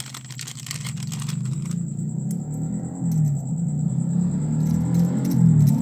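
Plastic wrapping crinkling for the first couple of seconds. A low motor-vehicle engine rumble then grows steadily louder.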